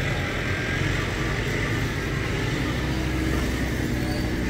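Steady low engine hum of a motor vehicle running nearby, unbroken throughout, with an even hiss above it.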